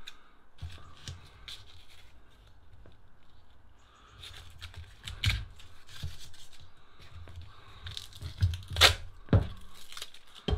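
Old duct tape being peeled and ripped off a machete handle in short tearing pulls, with a few louder sharp sounds near the end.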